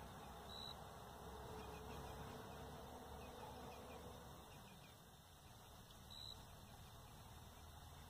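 A flying insect buzzing faintly for about three seconds, starting about a second in, over near-silent outdoor background.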